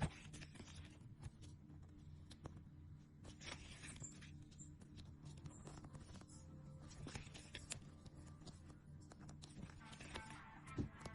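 Faint, irregular rustling, light clicks and taps of paper and plastic sticker sheets and packaging being handled, over a low steady hum.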